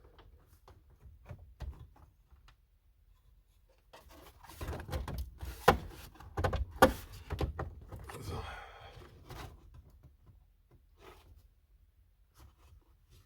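A Fox body Mustang's dash pad being tugged at and worked loose: a cluster of knocks, clicks and rubbing about four seconds in, with two sharp clicks as the loudest moments. It will not come free because a hidden second nut still holds one stud.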